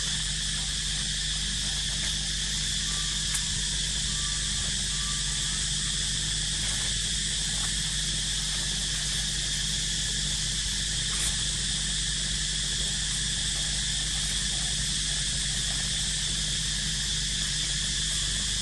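Steady, unbroken high-pitched drone of insects, with a steady low hum beneath it and a couple of faint clicks.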